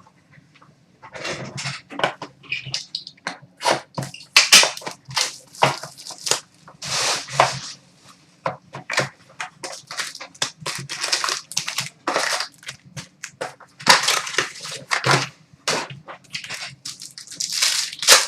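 Plastic shrink wrap crinkling and tearing, and cardboard and card packaging being handled, as a sealed box of trading cards is opened. The crackling comes in irregular bursts throughout.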